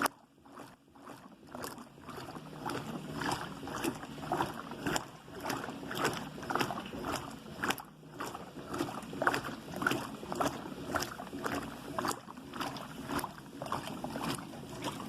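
Washing machine washing a load: water and laundry sloshing in the drum in a steady rhythm of about two swishes a second, starting faint and filling in over the first couple of seconds.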